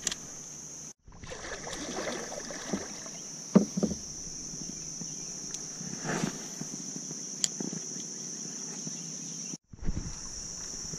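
Knocks and rustles of a rod and paddle being handled in a kayak, with the loudest knocks about three and a half and six seconds in. Under them runs a steady high insect buzz. The sound cuts out completely twice, briefly.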